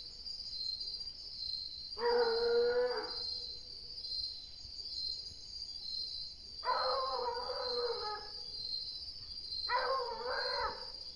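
Hunting dog baying at an animal it has found, three long howls of about a second each. A steady high insect trill runs underneath.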